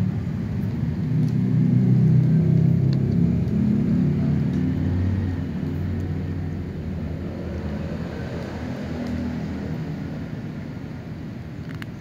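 Low rumble of a running motor, swelling to its loudest about two seconds in and then slowly fading.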